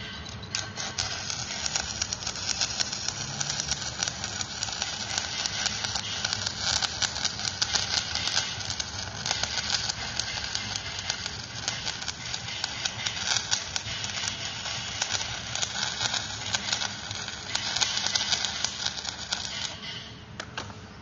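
Electric arc welding on an excavator bucket adapter: the arc crackles and sizzles steadily while a bead is laid, then cuts off suddenly near the end as the arc is broken.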